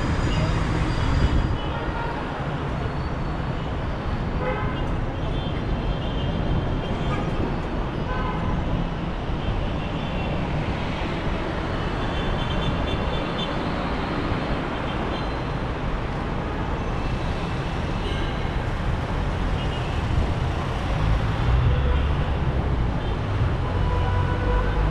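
Busy city street traffic: engines of cars, buses and motorbikes running steadily, with short car-horn toots now and then. The low engine rumble grows louder near the end as a heavier vehicle passes.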